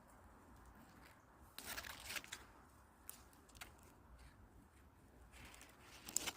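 Faint rustling of leaves and twigs, in two short bursts with a few light clicks between them, against near quiet.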